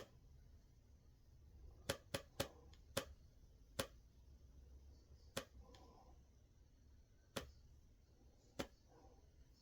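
About eight short, sharp clicks at irregular intervals over faint room tone.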